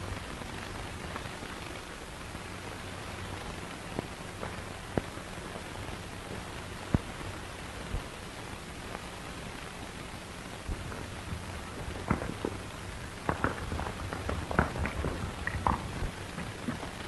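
Steady hiss of an old optical film soundtrack with scattered clicks and pops, which come thicker and sharper in the last few seconds.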